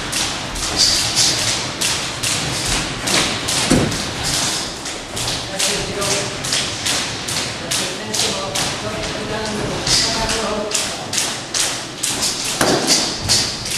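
Boxing-gym sparring: steady sharp tapping, about three taps a second, with an occasional heavier thud, from feet and gloves in the ring; voices murmur faintly behind.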